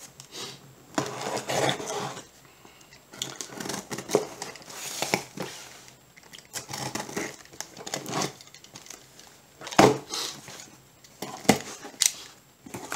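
Cardboard shipping box being opened by hand: tape tearing and packing material rustling and crinkling in irregular bursts, with a few sharp clicks in the last few seconds, the loudest about ten seconds in.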